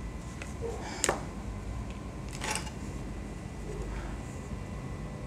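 Two small clicks, a sharp one about a second in and a softer, rattling one around two and a half seconds, over a steady low hum.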